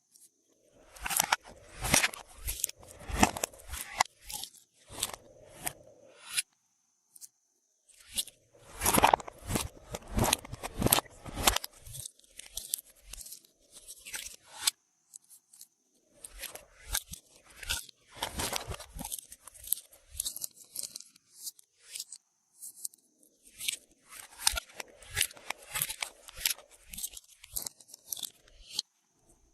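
Glossy slime being mixed, giving runs of sticky clicks and crackles in several bursts with short pauses between.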